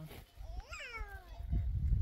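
A cat meowing once: one long call that rises and then falls in pitch. A loud low rumble starts near the end.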